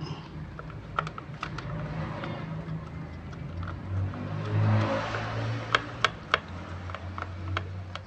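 Scattered light clicks and taps of bolts and a new plastic engine cooling fan being fitted by hand onto a Yamaha Mio Soul scooter's engine, with a few sharper clicks about six seconds in. A low steady hum runs underneath and swells briefly in the middle.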